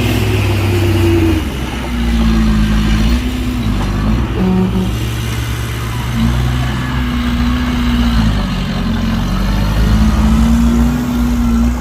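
Heavy diesel engine of earthmoving machinery running under load, its speed rising and falling back several times.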